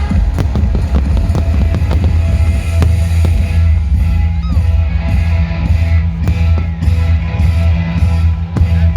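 Loud rock music with heavy bass, guitar and drums, mixed with sharp firework bangs and crackles that are most frequent in the first half.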